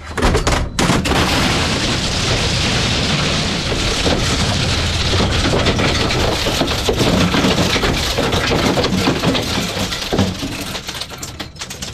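The world's largest blender shredding a keyboard: a dense clattering crash of breaking plastic and parts over the steady hum of the running machine. It starts suddenly and eases off near the end.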